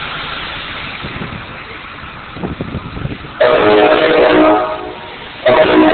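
Two loud horn blasts, each a held chord of several steady tones, the first about halfway through and the second near the end, over a steady rumble of background noise.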